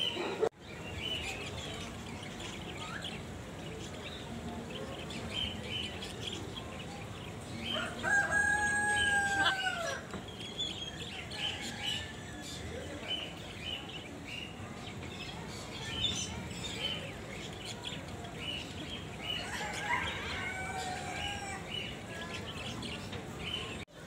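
Many small caged birds chirping steadily, with one long, loud, arching call from a larger bird about eight seconds in and a shorter burst of calls near the end.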